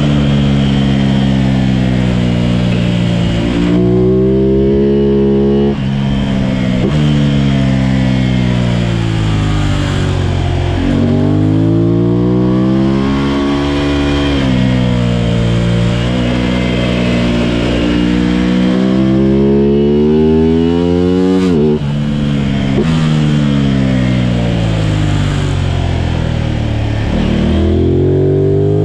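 A racing engine being driven hard around a circuit lap, its pitch climbing under acceleration and dropping sharply a dozen or so times with gear changes and braking for corners.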